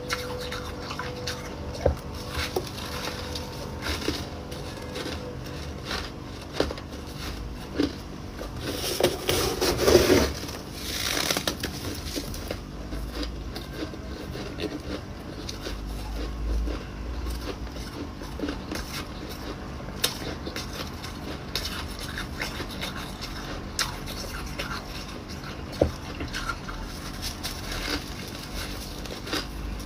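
Ice being bitten and chewed close to the microphone: scattered sharp crunches and cracks, with a dense run of crunching about nine to eleven seconds in.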